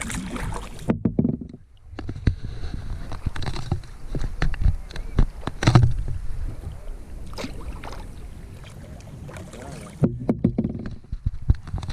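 Kayak being paddled: the paddle dips and splashes in the water, with scattered sharp knocks throughout.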